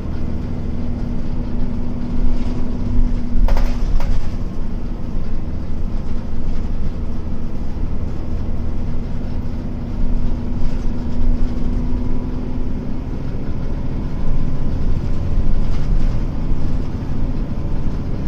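Hino Blue Ribbon KC-HU2MPCA bus engine running under way, heard inside the cabin as a steady low drone with a held hum and road rumble, with one sharp click about three and a half seconds in. Its engine note is a little unlike a normal Blue Ribbon's, even with the air conditioning off.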